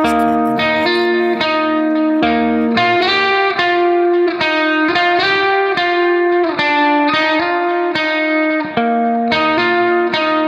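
Instrumental background music led by plucked guitar, with a steady run of sustained notes.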